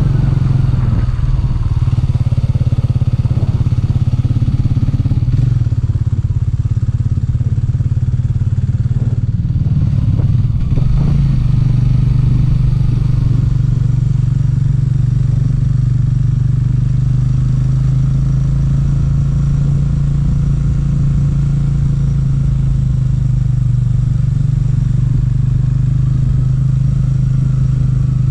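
Motorcycle engine running steadily under way, heard from on board the bike. About ten seconds in, the engine note dips and shifts briefly, then settles back to a steady run.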